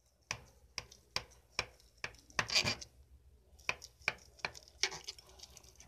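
Knife cutting through a chilled tapioca cake topped with grated coconut, the blade scraping and tapping against the bottom of the glass dish with each stroke. The strokes come as a run of short, sharp scrapes about two a second, with one longer, louder scrape near the middle.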